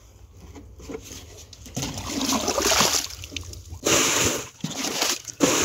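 Water being poured from a plastic jerrycan into a plastic drum, splashing as it fills. It starts faintly, grows louder about two seconds in and is strongest from about four seconds.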